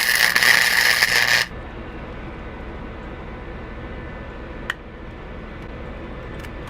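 Flux-core wire welder arc crackling steadily as a nut is welded onto a broken exhaust stud. It cuts off abruptly about a second and a half in. After that there is a low hum, with one sharp click about two-thirds of the way through.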